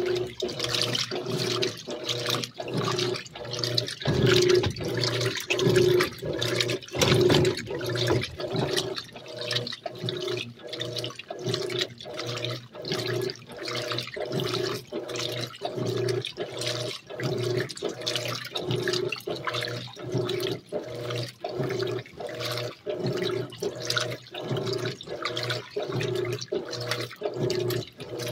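Electrolux LAC 12 top-loading washing machine agitating on its turbo program: the motor hum reverses in short strokes about twice a second while clothes and water slosh in the tub.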